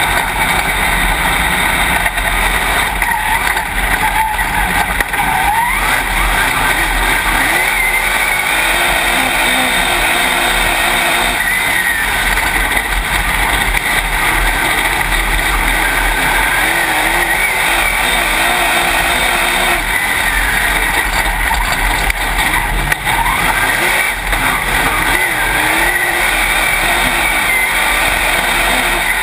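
Dirt late model race car's V8 engine heard from inside the cockpit, running loud and steady, with its pitch climbing a couple of times as the throttle opens.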